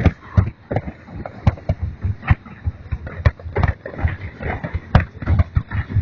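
Fireworks going off: a rapid, irregular string of sharp bangs and cracks, several a second.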